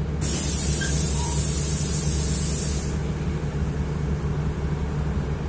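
City bus standing at a stop with its engine idling as a steady low hum, and a loud hiss of compressed air from its pneumatic system lasting about two and a half seconds near the start.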